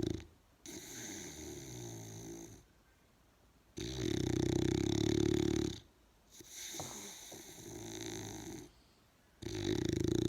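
A large animal snoring in slow, deep cycles: a loud low snore of about two seconds, then a quieter breath, repeating about every five and a half seconds.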